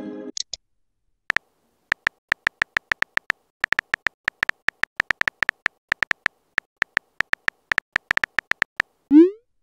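Phone keyboard tap sounds clicking in quick, uneven succession as a text message is typed, after the tail of a chiming message tone at the start. Near the end, a short rising swoosh as the message is sent.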